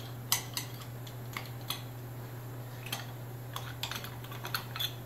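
Light, irregular metal clicks and taps of a hand tool picking at the rusted snap ring inside the end of a John Deere hydraulic cylinder, over a steady low hum.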